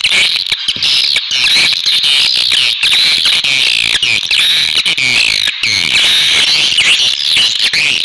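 Many swiftlets twittering together: a dense, continuous chatter of rapid high chirps and short trills.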